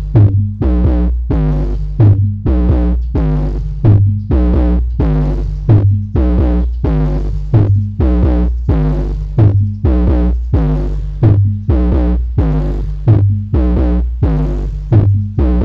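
Electronic dance music with a heavy bass line and a steady beat of about two hits a second, played through a lone Ashley PD185VC 18-inch subwoofer driver with a 5-inch voice coil, run without mid or high drivers from a class-D amplifier.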